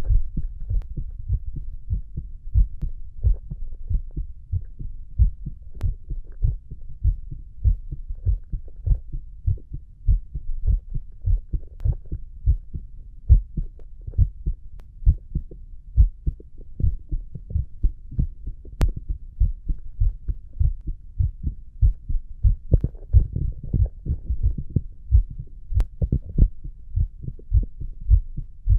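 A young man's heartbeat heard close up: a steady, regular rhythm of low, dull thumps that goes on without a break.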